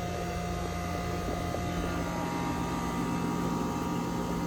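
Goodman 5-ton single-stage central air conditioner's outdoor condenser unit running in cool mode: a steady hum with a few held tones under the rush of the condenser fan.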